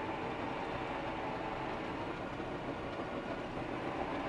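Caterpillar bulldozer's diesel engine running steadily under load, heard from inside the cab, with a faint whine held over the drone of the engine.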